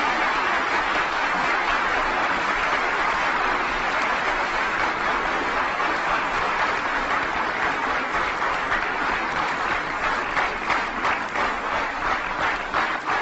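Large audience applauding a speech: dense, steady clapping that, from about two-thirds of the way in, turns into separate claps in a rhythmic unison beat, about three a second.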